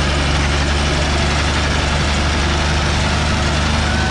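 John Deere 5045 tractor's three-cylinder diesel engine running steadily at an even speed.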